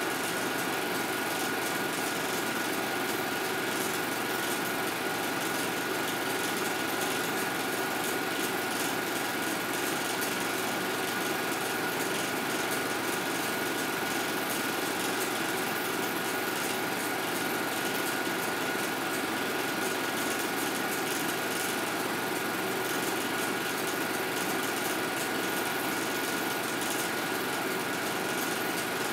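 A steady mechanical running noise: an even hiss with a constant high whine, unchanging throughout.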